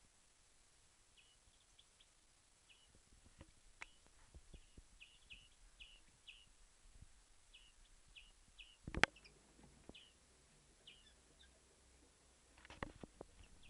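Hand-reared pet bird giving a string of short, high chirps at irregular intervals. A few sharp clicks sound among them, the loudest about nine seconds in and a quick cluster near the end.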